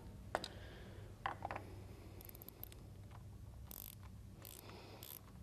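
Faint, irregular clicks and light taps from hands working a new spin-on motorcycle oil filter and its O-ring ready for fitting.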